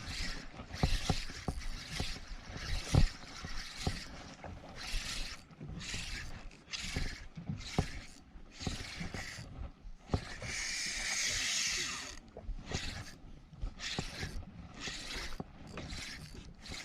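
Fishing reel ratcheting in short bursts as line is wound in on a hooked fish, with one longer, steadier run of winding or drag about ten seconds in.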